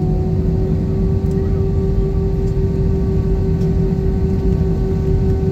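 Cabin noise inside an Airbus A320 taxiing: a steady low rumble with a constant hum from the idling jet engines and cabin air.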